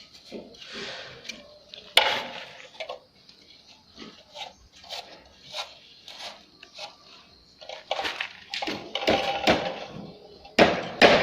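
Masonry work: scattered light taps and scrapes, with a sharp knock about two seconds in. Near the end comes a run of louder knocks, about two a second.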